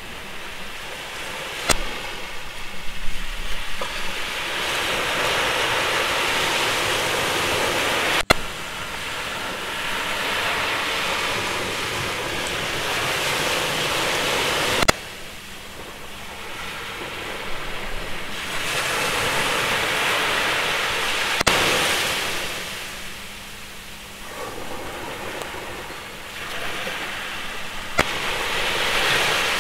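A rushing noise that swells and fades in slow waves every few seconds, like surf, with a sharp click about every six and a half seconds.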